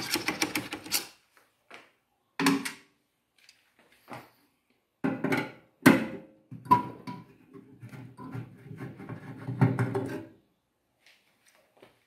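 Screwdriver working the screws that hold a microwave oven's magnetron to its sheet-metal frame: scattered metallic clicks and short scrapes, busiest in the second half.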